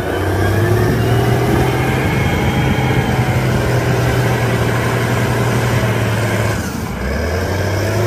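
Caterpillar 990 wheel loader's diesel engine running steadily with a low hum while the machine pushes its bucket into a pile of earth. The engine note drops lower about seven seconds in.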